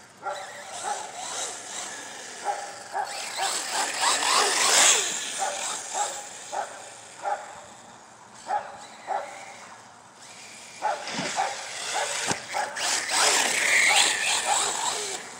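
Arrma Typhon 6S truggy, geared down on a 12-tooth pinion, driving over grass: its brushless motor whines, loudest about four seconds in and again near the end, with a rising whine as it comes close. A dog barks repeatedly in short spaced barks.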